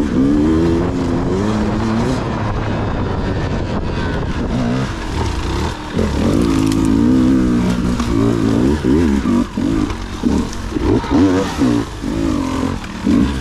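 Dirt bike engine revving up and down as the throttle is worked over rough ground, with quick short blips of throttle in the second half.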